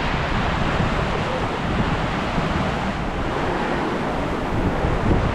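Surf washing onto a sandy beach, a steady hiss of waves, with wind buffeting the microphone in low rumbles.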